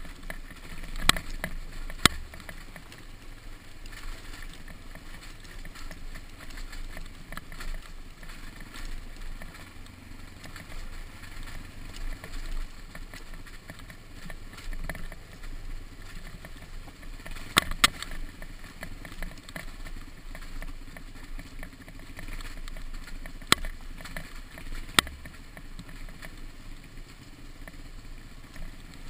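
Suzuki DR-Z dirt bike's single-cylinder engine running as it rides a rough dirt trail, heard through a bike-mounted camera with steady rushing noise. Sharp knocks from the bike jolting over the ruts come about a second in, at two seconds, twice in quick succession a little past halfway, and again near the end.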